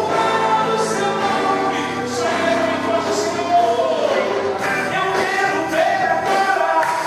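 Gospel worship song: a choir singing sustained lines over a band.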